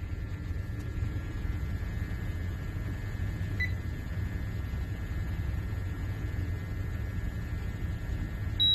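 Steady low hum with a faint high whine, a short beep about three and a half seconds in, and the air quality monitor's high-pitched alarm tone starting right at the end: the monitor is signalling a hazardous atmosphere, oxygen under the 19.5% working limit.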